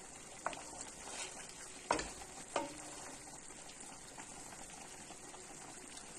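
A bacon-wrapped turkey breast roll sizzles steadily in its reduced Port wine sauce in a pot, nearly done. A wooden spoon knocks against the pot three times in the first few seconds as the roll is turned, the loudest knock at about two seconds.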